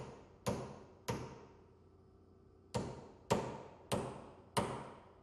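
Hammer striking a punch against a steel lock washer tab, about seven sharp blows each with a short ring: three quick ones, a pause, then four more. The taps are bending the washer tab into the lock nut notch to lock the nut on the bearing's adapter sleeve.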